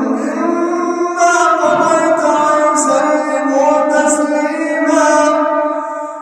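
A male Quran reciter chanting in melodic tajweed style, one voice holding long, ornamented notes.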